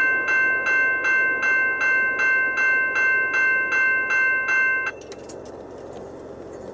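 Railroad crossing warning bell ringing about three strikes a second, then cutting off abruptly about five seconds in as the crossing clears and the gate arms begin to lift. A steady low rumble runs underneath.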